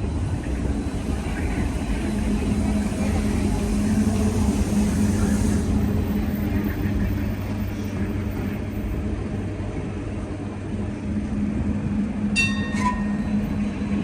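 Steady low rumble of a moving vehicle, with a short high-pitched electronic beep near the end.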